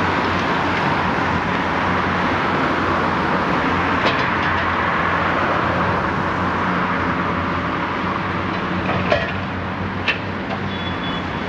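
Diesel engine of a high-reach demolition excavator running steadily while it works at a brick building, with a few sharp knocks of masonry.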